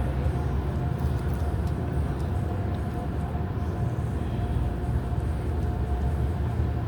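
Steady low rumble of a moving vehicle, with a faint steady tone running through it.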